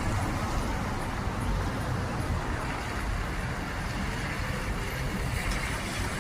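Steady road traffic noise, an even rumble of passing cars with no single event standing out.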